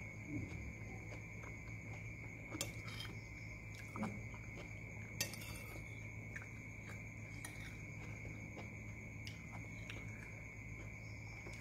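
Metal spoon clinking and scraping against a ceramic bowl while eating, with a few sharp clicks, the loudest about five seconds in, and soft chewing.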